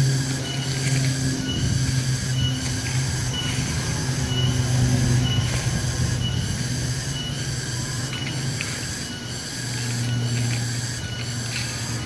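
A steady chorus of insects, typical of cicadas, pulsing a little under twice a second, over a steady low hum that dips briefly near the end.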